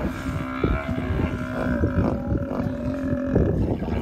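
African buffalo bellowing in one long, steady call of nearly three seconds: a pain call from a buffalo with a crocodile clamped on its nose, being dragged from the water.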